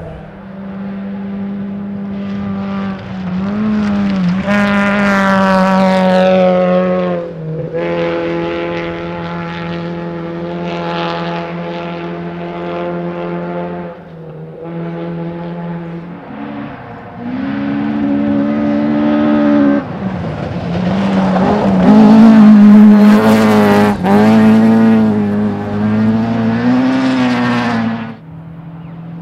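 Rally car engine at full throttle on a gravel special stage, held at high revs with several drops in pitch as it changes gear or lifts off. It gets loudest about two-thirds of the way through as the car passes close.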